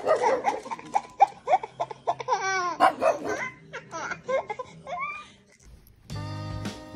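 A baby laughing in excited bursts, with a small dog barking among the laughs. Background music starts near the end.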